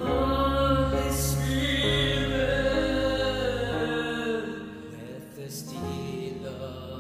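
Slow worship music with long held sung notes over sustained chords and a low bass line, dropping in volume about halfway through.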